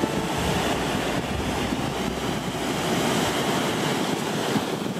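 Steady rush of a small stream spilling in little cascades over a concrete weir, with wind buffeting the microphone during the first few seconds.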